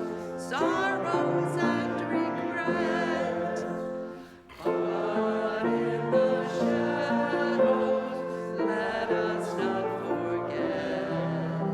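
Congregation singing a hymn together in long held notes, breaking briefly between phrases about four seconds in.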